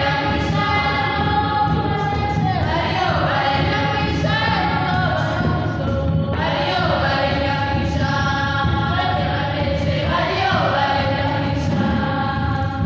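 A choir of girls singing an African traditional folksong together in repeating phrases a few seconds long, with drums beating underneath.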